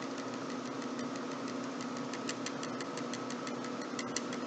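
Rapid light clicking of a computer mouse or pen as paint is dabbed on in a painting program, coming more evenly, a few clicks a second, in the second half, over a steady low hum.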